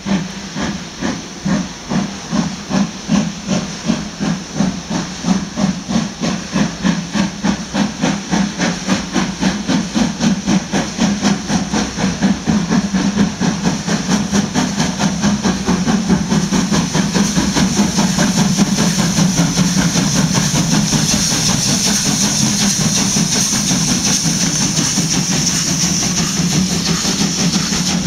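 Steam locomotive 01 1075 starting its train away: loud, even exhaust chuffs at about two to three a second at first, coming steadily faster as it gathers speed until they blur into a continuous steam hiss.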